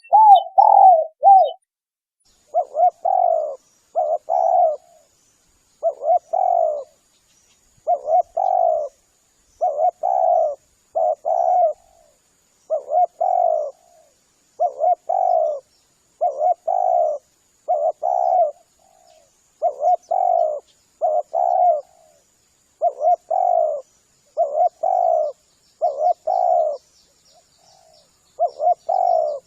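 Spotted dove (tekukur) cooing over and over, short coos mostly in pairs, phrase after phrase with brief gaps: a lure call for drawing in doves.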